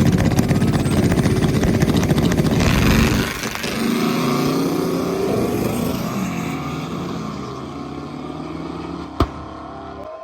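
A vehicle engine running loud with rapid firing pulses for about three seconds, then dropping in pitch and fading away. There is a single sharp click near the end.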